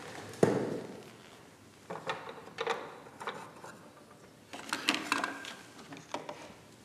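Handling sounds at an artist's worktable: a dull knock about half a second in, then scattered light taps and clinks as paintbrushes and small jars are picked up and set down.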